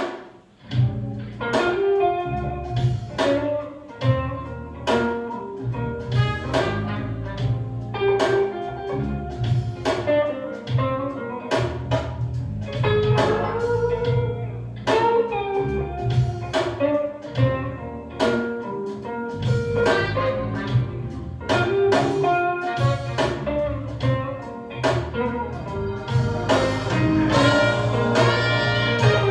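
Guitar-led music, plucked notes one after another over a steady deep bass line, played back on a hi-fi system.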